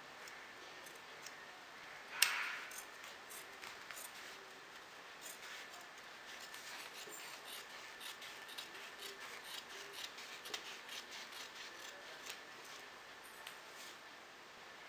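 Large tailor's scissors snipping through poplin fabric in a run of short cuts along a chalked armhole line. One louder brief rustling noise about two seconds in.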